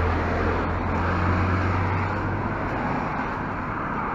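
Road traffic passing close by: a steady wash of car tyre and engine noise, a little louder in the first half.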